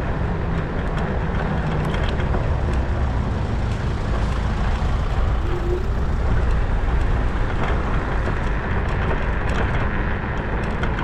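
Motorcycle riding along at steady speed: continuous low engine and road noise with a few faint light ticks, and no squeaks or rattles standing out.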